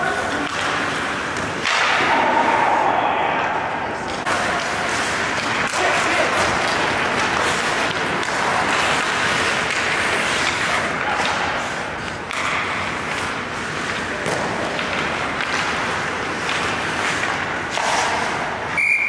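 Ice hockey practice on an indoor rink: skate blades scraping the ice, with repeated knocks and thuds of sticks and pucks striking the boards and each other, echoing in the arena, and players' voices calling now and then.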